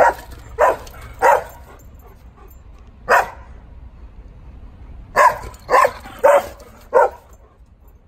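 Bernese Mountain Dog barking in play while chasing another dog: eight short, loud barks, three in quick succession, a single one, then four more.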